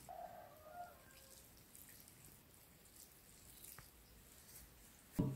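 A plastic spatula scraping parboiled rice out of a metal colander into a steel pot, with a brief squeak in the first second. Saffron water is then trickled and dripped over the rice, and a single sharp knock comes near the end.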